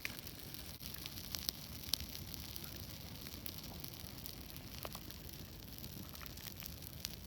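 Bonfire burning with a steady low rush and scattered sharp crackles and pops from the burning wood.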